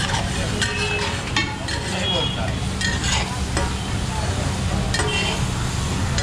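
Metal spatulas scraping and clinking on a very large flat tawa as food is stir-fried on it, with a frying sizzle under the irregular strokes.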